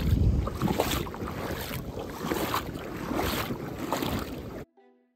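Bare feet wading through a shallow creek, splashing and sloshing water with each step. The sound cuts off suddenly near the end.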